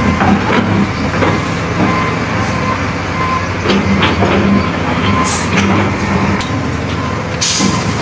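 Diesel engines of an XCMG XE150WD wheeled excavator and a loaded dump truck running steadily while the excavator loads demolition rubble, with scattered knocks and clanks of debris. A short hiss comes about five seconds in and a louder one near the end.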